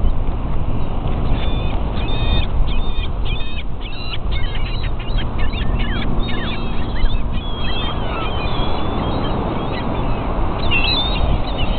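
A flock of gulls calling over one another: many short, quick calls in fast succession, thinning out about eight seconds in and picking up again near the end, over a steady low rush.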